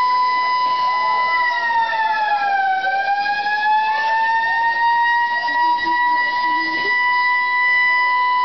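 Alarm siren sounding the evacuation signal of a civil defence drill, holding one high tone. Its pitch sags about a second and a half in, climbs back over the next two seconds, then holds steady.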